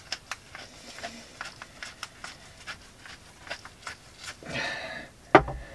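Hand pepper grinder twisted over a chicken: a run of small, quick crunching clicks as peppercorns are ground, then a louder single knock near the end.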